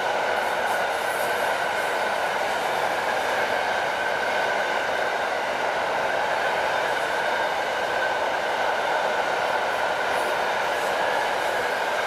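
Freight train of container and swap-body flat wagons rolling past across a railway bridge: a steady, unbroken rolling rumble of wheels on rail that holds level throughout.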